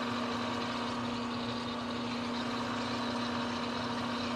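Manual lathe running with its spindle turning, a steady machine hum carrying one strong even tone. No cutting is heard: the threading tool is only being brought up to touch off on the workpiece.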